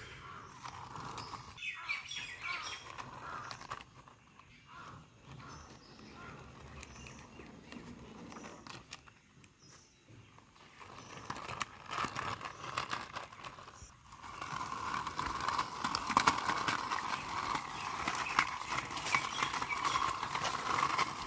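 Yellow plastic toy motorbike pushed by hand along rough brick and stone, its small plastic wheels rolling and scraping with a run of clicks. The rolling grows louder and denser in the last several seconds.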